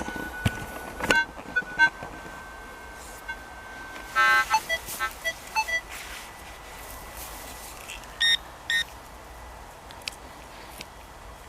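Minelab CTX 3030 metal detector sounding its target tones as it is swept over the ground. A steady tone holds for about four seconds, then comes a quick cluster of beeps, and two short high beeps near the end.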